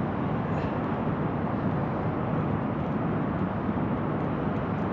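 Steady outdoor ambient rushing noise with no distinct events.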